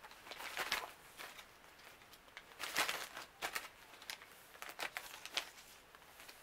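Face mask sachets crinkling in several short, irregular bursts as they are handled and pushed into a cosmetic bag.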